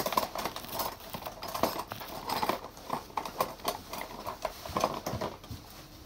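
Irregular light taps and knocks with rustling: hands, cloth and plastic being handled right against the phone's microphone.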